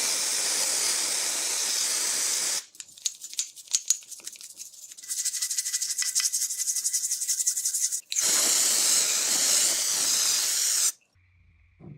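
Two long hissing sprays, as from an aerosol cleaner or air nozzle, with a run of quick scrubbing or rasping strokes between them. The hiss stops suddenly near the end.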